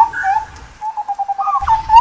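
Indian scimitar babbler calling: short whistled notes sliding up and down, then a quick run of even, repeated notes about a second in, followed by a rising slurred whistle and more notes.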